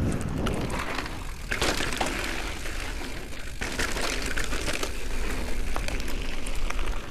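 Mountain bike riding over a dirt trail: tyre noise with frequent rattles and clatter from the bike over bumps, over a steady low rumble of wind on the microphone.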